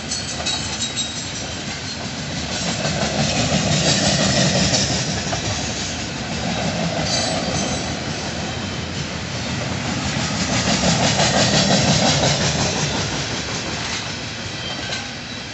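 Loaded gondola cars of a freight train rolling past, steel wheels clicking over rail joints over a steady rumble. The rumble swells twice and fades as the cars go by.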